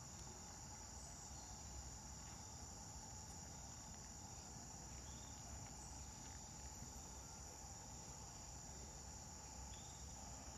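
Faint, steady, high-pitched trill of insects over a low rumble, with a few short chirps.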